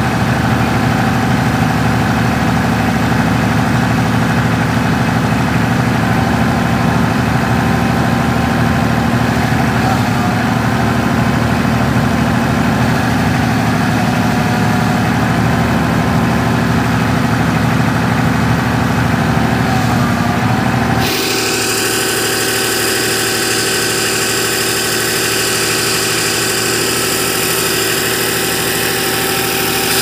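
A backhoe's engine running steadily while the machine is worked. About two-thirds of the way through the sound changes suddenly: the deep rumble drops away and a higher hiss with a thin steady whine takes over.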